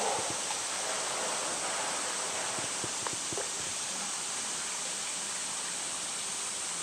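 Steady outdoor background hiss, with a few faint clicks about three seconds in.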